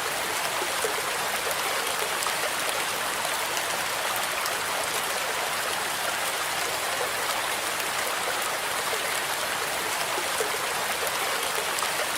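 Steady rain mixed with white noise: an even hiss with a fine patter of many small drops, unchanging throughout.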